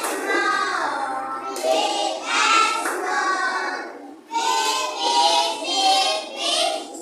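Children singing a song together, in phrases with a short pause about four seconds in.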